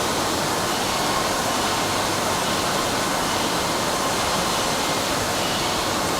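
Vinyl flooring sheet-cutting machines running, heard as a steady, even machinery noise with no distinct strokes.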